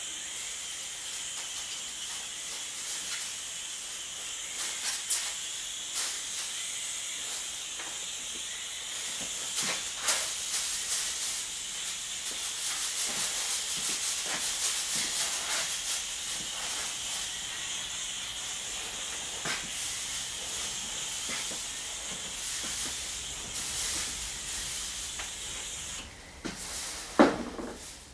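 Aerosol spray can hissing in one long continuous spray that stops about two seconds before the end, with light rustling and clicks over it. A sharp knock follows near the end.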